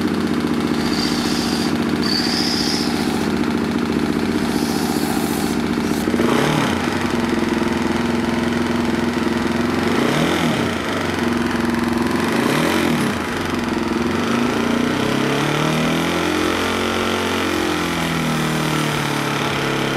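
Honda CRF450 single-cylinder four-stroke engine running, turning a small Roots supercharger through a belt off the camshaft. It is blipped up and back down three times, then revved for a longer spell and let back down near the end.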